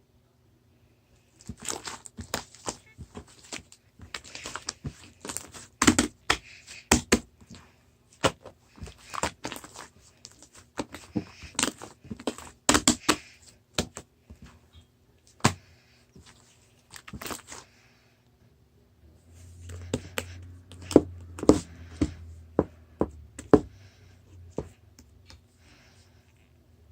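Small objects handled on a tabletop mat: irregular clicks and taps mixed with rustling and crinkling, in two busy spells with a short pause between them.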